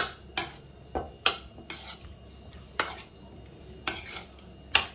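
Metal spoon stirring chicken drumsticks through a thick marinade in a bowl: the spoon clinks and scrapes against the bowl in irregular strokes, about eight in all.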